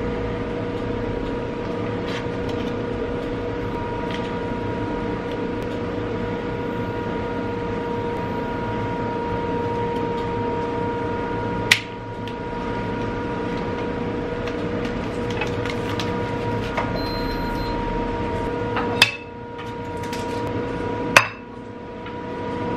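Steady electrical hum at a constant pitch, broken by three sharp clicks: one about halfway through and two close together near the end.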